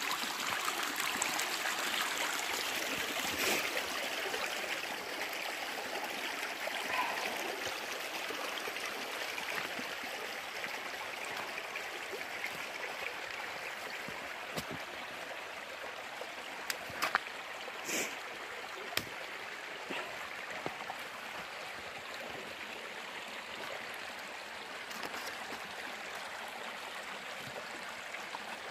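Small mountain stream rushing and trickling steadily, slowly growing quieter, with a few sharp clicks about two-thirds of the way through.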